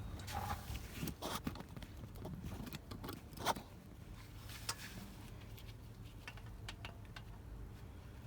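Scattered light clicks and clatters of objects being handled during a car oil change, with one sharper knock about three and a half seconds in, over a faint steady low hum.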